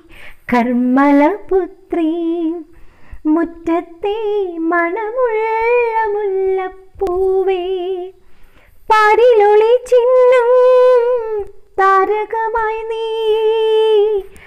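A woman's voice singing a slow melody unaccompanied, holding long notes with vibrato and pausing briefly between phrases.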